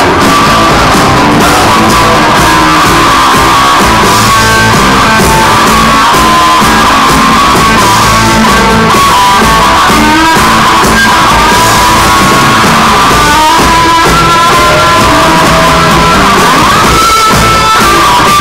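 Live rock band playing loud: electric guitars and drums with a singer, heard from the audience.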